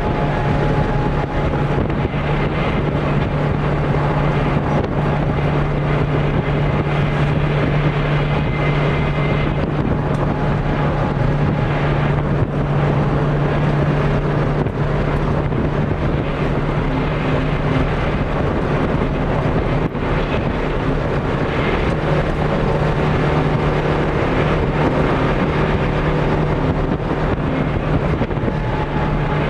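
Rally car engine running hard at a fairly steady pitch, heard from inside the cabin, with constant road and wind noise.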